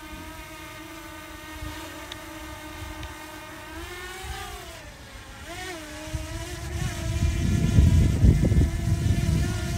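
DJI Mini 2 drone's propellers humming in a steady whine, the pitch swelling up and back down twice near the middle. Wind buffets the microphone with a rumble that grows louder over the last few seconds.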